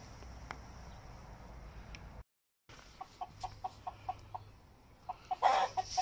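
Rooster clucking: a run of short clucks at about four a second, then a few more near the end with one louder, rougher burst among them. The sound drops out to silence for a moment a little past two seconds in.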